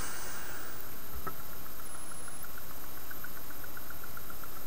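Steady hiss with one sharp click about a second in, as fine nichrome and silver wire are touched together in a small homemade spot-welding rig. Faint quick ticking, about five a second, follows in the second half.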